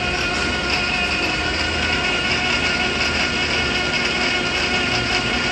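South Bend Heavy Duty lathe running under power, its spindle and gearing giving a steady mechanical hum with several constant whining tones.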